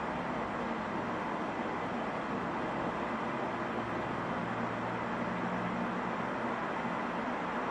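Steady static hiss from an EVP box, a ghost-hunting noise device, with a faint low hum coming up midway.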